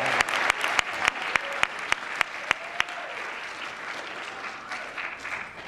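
Audience applause fading away, thinning to a few scattered single claps.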